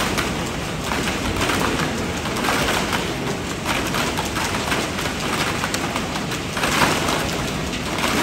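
Used plastic PET bottles spilling out of a bottle pre-washer and tumbling onto a pile, a dense crackling clatter that swells and eases every second or so over the steady noise of the machine running.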